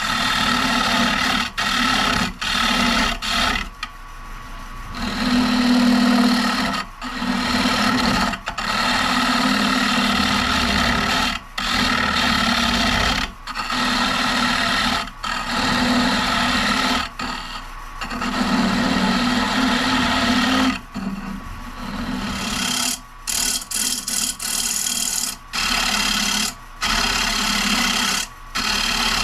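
Rikon carbide turning tool cutting a spinning maple bowl blank on a Rockler 10 by 18 wood lathe: a steady scraping cut that breaks off for a moment and starts again many times as the tool is lifted and set back on the wood.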